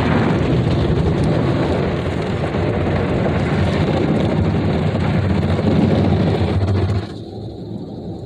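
Ryko Softgloss Maxx rollover car wash scrubbing the truck: spinning brushes and water beating on the body, heard from inside the cab as a loud, dense rush with a low rumble. It cuts off abruptly about seven seconds in, leaving a quieter low hum.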